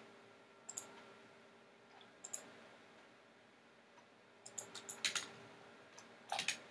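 Computer mouse buttons clicking: single clicks about a second and two seconds in, then a quick run of clicks in the second half.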